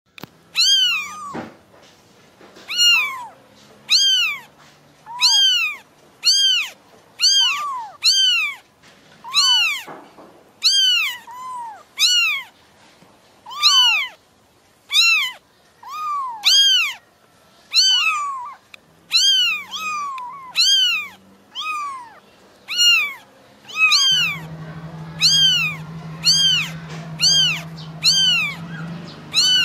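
Young kitten mewing over and over, calling for its mother: thin, high meows about one a second, each rising then falling in pitch.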